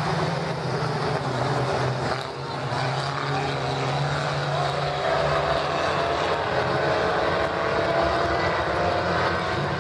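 Pack of four-cylinder pony stock race cars, Dodge Neons among them, running hard around a paved oval with their engine notes overlapping. The revs climb gently in the second half.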